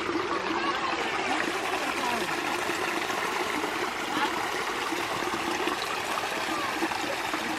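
Creek water flowing steadily, with bubbling trickles.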